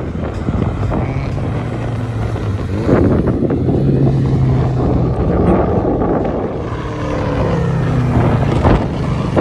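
Car engines running steadily as cars drive along a race circuit, the engine note shifting in pitch around seven seconds in, with some wind noise on the microphone.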